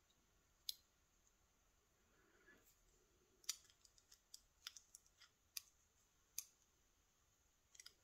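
Small steel parts clicking as the sliders of a Mottura pump lock's core are pushed out with a thin metal rod: scattered sharp metallic clicks, one about a second in, then a quick run of them from about three and a half to six seconds in, and a couple more near the end.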